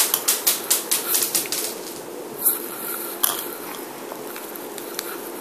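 Small hard candies clicking as they are dropped one after another into a toy candy dispenser. A quick run of clicks comes in the first second or two, then a few single clicks.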